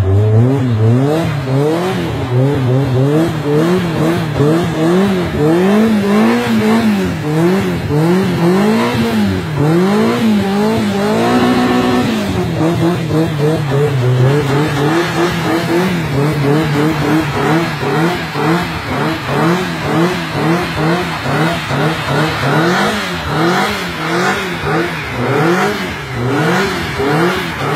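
Mk1 Volkswagen Golf's engine revving up and down about once a second in a burnout, its front wheels spinning against the road with tyre noise. About twelve seconds in the revs are held high for a moment before dropping back.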